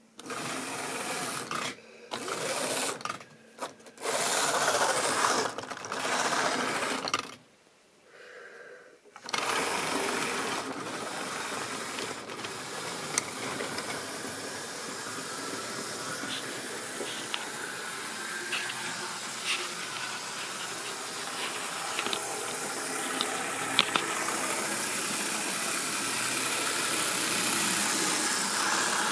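Tri-ang or Lima model trains running on sectional track: a motor whirr with wheel rumble that starts and stops several times in the first nine seconds, then runs on continuously with occasional sharp clicks.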